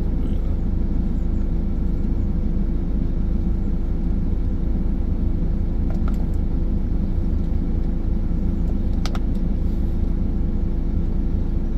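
Steady low rumble of an idling engine, with a faint click about six seconds in and another about nine seconds in.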